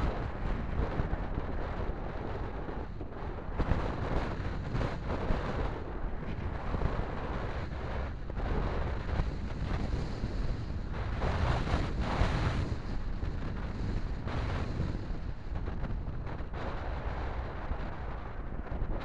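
Car driving noise picked up by a dashcam inside the cabin: a steady rumble of engine and tyres on the road, with wind noise on the microphone.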